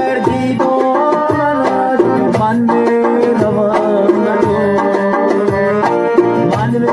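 Live amplified Tajik folk dance music: an electronic keyboard plays a stepping melody over a steady beat on a doira frame drum, heard through PA speakers.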